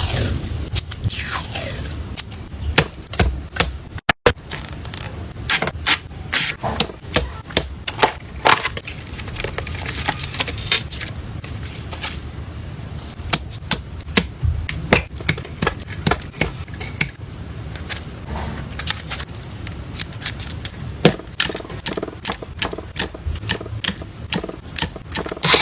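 Close-up handling of photocards and packing materials: a dense run of sharp taps, clicks and scrapes as cards and packaging are handled. The sound cuts out briefly about four seconds in, then carries on.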